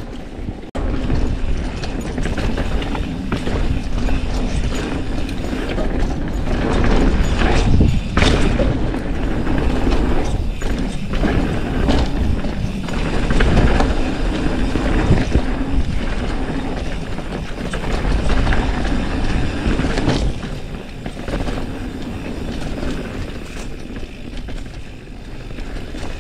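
Mountain bike riding fast over a dirt trail: continuous tyre and rolling noise with the bike rattling and knocking over bumps, picked up by a chin-mounted action camera.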